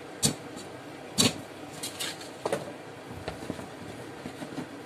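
Kitchenware clacking and knocking as a metal mesh strainer is set back on a stainless steel pot and a frying pan of spaghetti is shifted on a glass-ceramic hob. There is a sharp clack just after the start and a louder one about a second in, then a few lighter knocks and ticks.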